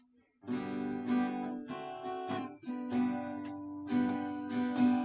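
Acoustic guitar strummed in a steady rhythm, starting about half a second in: the instrumental introduction before the singing of a song begins.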